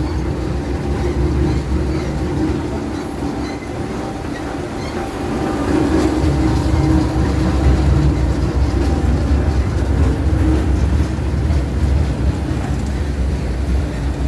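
Industrial scrap-fabric shredder running under load, with a loud, continuous, deep rumble that grows a little louder about five seconds in.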